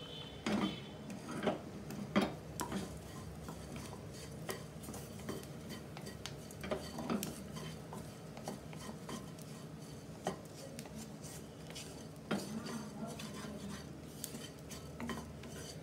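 Wooden spatula stirring and scraping fenugreek and cumin seeds as they roast in a non-stick frying pan, with irregular light knocks of the spatula against the pan.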